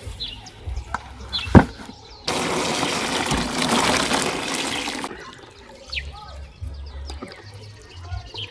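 Water running from a tap for about three seconds, starting and stopping abruptly, shortly after a sharp knock.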